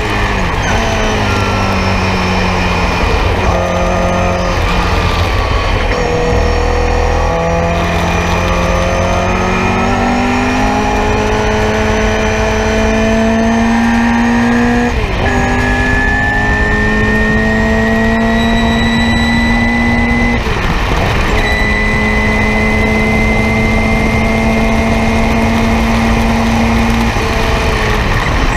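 Nissan Sentra race car's four-cylinder engine heard from inside the cockpit under hard acceleration. Its pitch climbs steadily through the revs and drops sharply at each of several gear changes.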